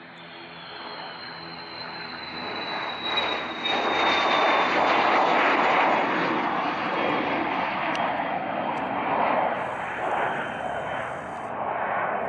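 Cessna Citation Excel's twin Pratt & Whitney Canada PW545A turbofans at takeoff power as the business jet lifts off and climbs past. The jet noise builds to its loudest about four seconds in, with a high fan whine that slowly falls in pitch, then eases off a little as the jet climbs away.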